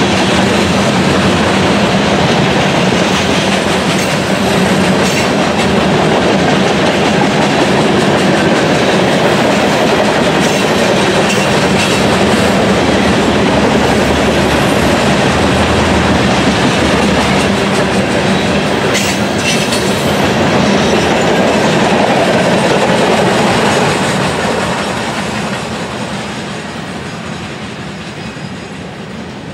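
Freight train of loaded CSX covered hopper cars rolling past close by, a steady loud rumble of wheels on rail with a low hum. About 24 seconds in the last car goes by and the sound fades as the train draws away.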